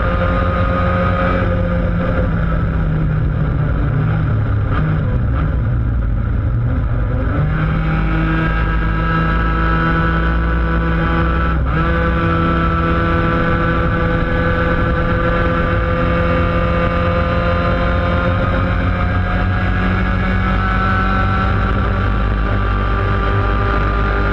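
Laydown enduro racing kart's engine running at speed, picked up close on the kart. Its note falls away about two seconds in, comes back strongly a few seconds later, and then climbs slowly and steadily in pitch.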